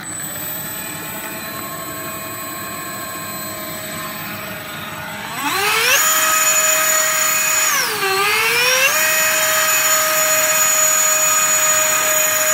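Electric ducted-fan motors of an RC A320 airliner model running on the ground with a steady whine. About five seconds in they spool up to a much higher, louder whine. They dip briefly, then climb back and hold at high throttle.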